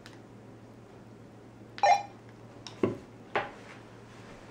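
Quiet room tone with a steady low hum, broken by three short sharp clicks or knocks about two, three and three and a half seconds in, the first the loudest.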